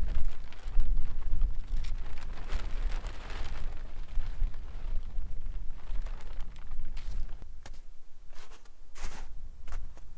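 Wind buffeting the microphone in a low, gusting rumble, with short crunching footsteps in snow over the last few seconds.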